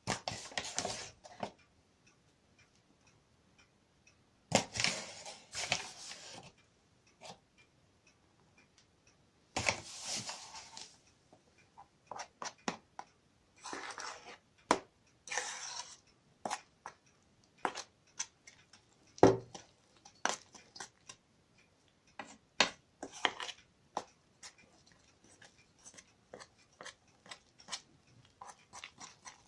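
A plastic flour bag rustling in a few bursts as flour is added to the bowl. Then a metal spoon stirs thick flour-and-cottage-cheese dough, with many short scrapes and clicks against the enamel bowl.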